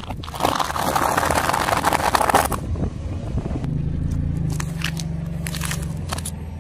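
Car tyre crushing a pile of dry fusilli pasta on asphalt, a dense crackling crunch lasting about two and a half seconds. Then a steady low car engine hum with a few sharp snaps of plastic being crushed.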